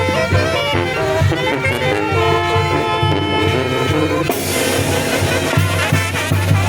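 Tamborazo band playing: brass and woodwind melody over the steady low beat of the tambora bass drum.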